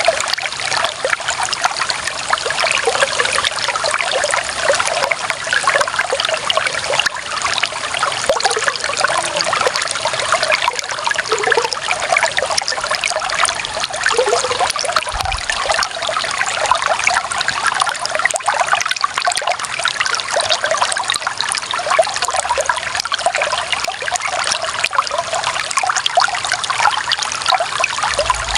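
Clear water running and trickling steadily over stones, a dense bubbling and splashing with small gurgles.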